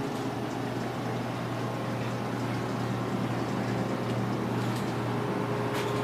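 Steady low hum of grocery-store refrigerated display cases, with one sharp click near the end.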